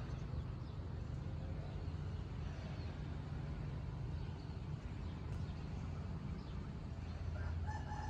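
A rooster crowing near the end, over a steady low rumble.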